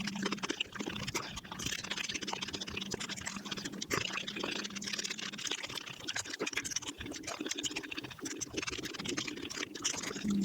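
Eating sounds sped up to five times normal speed: chewing and mouth noises run together into a rapid, dense clicking and crackling, with a steady low hum through the first half.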